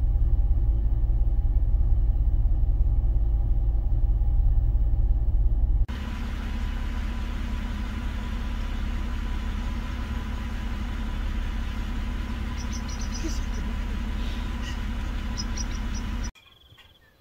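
Car engine idling, heard from inside the vehicle as a steady low rumble. About six seconds in, the sound changes abruptly to a lighter, hissier hum with a thin steady tone, and it cuts off sharply shortly before the end.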